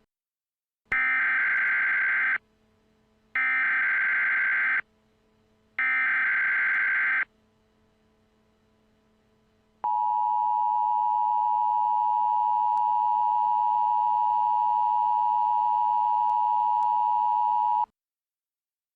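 Emergency Alert System SAME header: three short bursts of data tones, each about a second and a half long with a second's pause between them, followed by the two-tone attention signal, a steady dual tone held for about eight seconds that cuts off sharply. Together they signal the start of an emergency alert broadcast.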